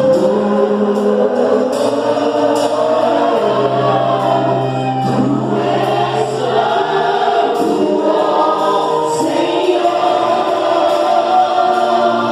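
Gospel worship music: a group of voices singing long held notes together over a band with a sustained bass line.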